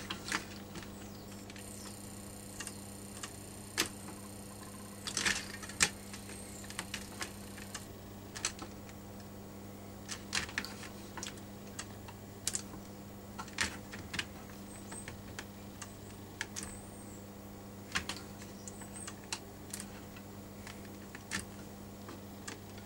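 Scattered light clicks and taps as electrode clips are pressed onto and lifted off the wires of a beehive frame, over a steady low electrical hum from the transformer driving current through the wires to melt them into the wax foundation.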